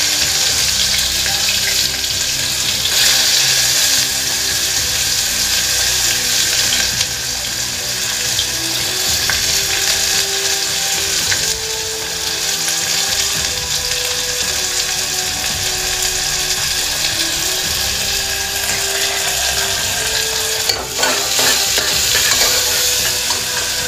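Chopped onions sizzling steadily in hot oil in an aluminium pressure cooker, with a spoon stirring and scraping against the pot near the end.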